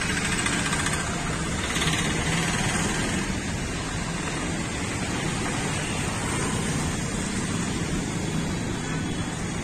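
Steady street traffic: motorcycles and cars passing, a continuous wash of engine and tyre noise.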